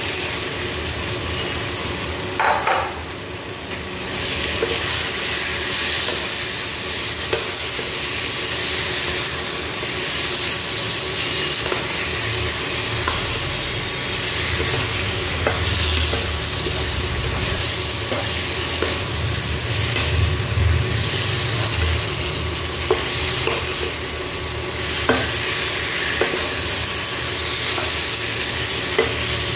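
Chunks of potato and young jackfruit sizzling in hot oil and spice paste in a nonstick wok while being stirred and tossed with a spatula, which scrapes and taps the pan a few times. This is the frying stage after the masala has cooked down until the oil separates.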